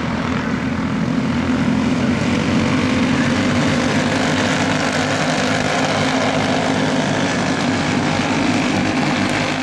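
Racing go-kart engines running steadily at speed, a continuous buzzing drone.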